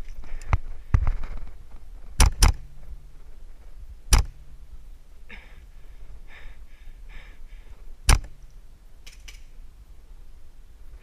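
Scattered sharp snaps of airsoft gunfire, single shots at irregular intervals, two in quick succession, with rustling and light rattling of gear between them.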